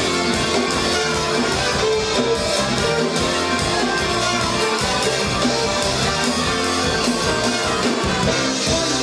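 Live band playing rock and roll.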